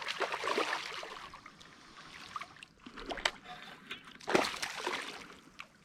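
Water splashing and sloshing as a hooked bass is fought to the bank and landed, in uneven bursts with the loudest splash a little past four seconds in.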